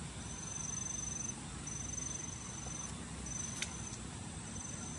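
An insect trilling in a thin, high-pitched, steady tone, repeated in runs of about a second with short gaps between them.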